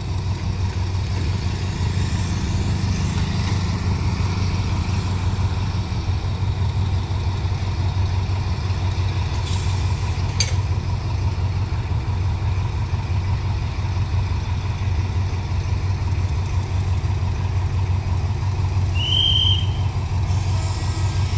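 Diesel locomotive engine running steadily with an even low drone. Two short clicks come about halfway through, and a brief high chirp near the end.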